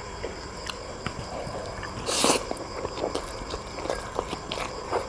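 Close-up wet eating sounds of spicy chicken feet being chewed and sucked: irregular small smacks and clicks, with a louder slurp about two seconds in.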